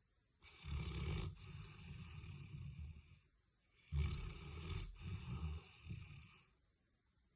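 A dog snoring loudly: two long snores, one starting about half a second in and one about four seconds in, each loudest at its start and lasting over two seconds, with quiet pauses between breaths.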